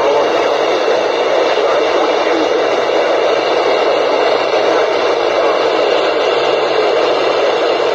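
Weather radio receiver hissing with loud, steady static.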